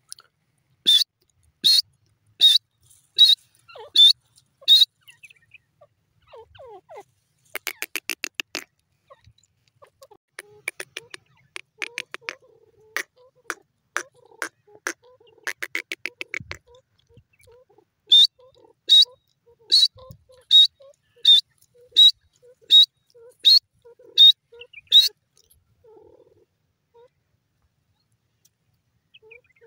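Female grey francolin (teetar) calling: two runs of loud, sharp, evenly spaced calls, about one and a half a second. Between the runs is a quick, fainter chattering rattle.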